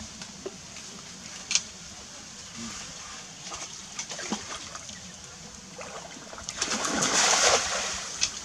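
Pond water splashing and dripping as a fishing net is drawn in, with a louder stretch of splashing about seven seconds in. There is a single sharp click about a second and a half in.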